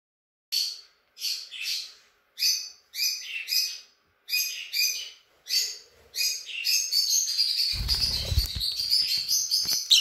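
Pet rosy-faced lovebirds chirping in short, high-pitched bursts. The calls run together into continuous chattering for the last few seconds, with a brief low rumble about three-quarters of the way through.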